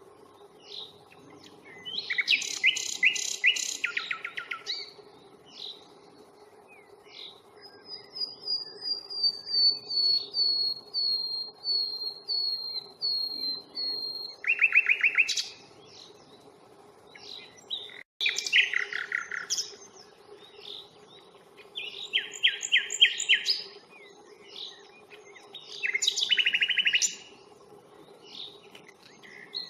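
Common nightingale singing in separate phrases a few seconds apart. Most phrases are bursts of fast repeated notes; about eight seconds in comes a slower series of about ten whistled notes, slowly falling in pitch. A faint steady low hum runs underneath.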